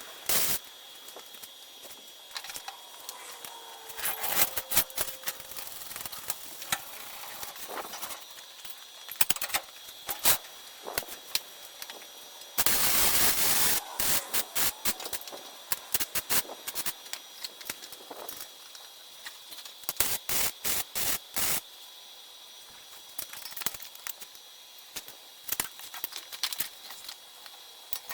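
Welder putting down short crackling tacks and bursts, with one longer burst of about a second and a half near the middle, among sharp clicks and knocks.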